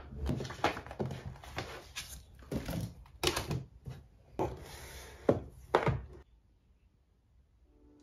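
Things being handled and set down on a desk: a run of knocks, taps and thunks as small items and notebooks are moved about, stopping about six seconds in.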